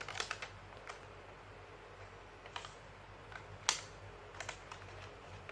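Faint, sparse crinkles and clicks of a small plastic toy wrapper being handled and pulled open, with one sharper crackle about three and a half seconds in.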